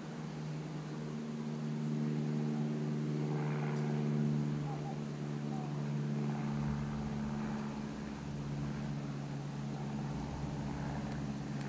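Steady low drone of a motor or engine in the background: a hum made of several steady tones that holds through, swelling slightly a few seconds in.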